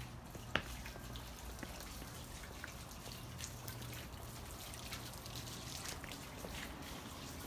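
Tiered garden fountain trickling and dripping faintly, with many small irregular drops. A single sharp click about half a second in.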